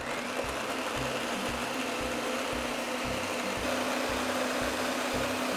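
Countertop blender running on low power, blending oat milk, dates, matcha and almond butter into a latte: a steady whir with a motor hum that starts at once and holds even.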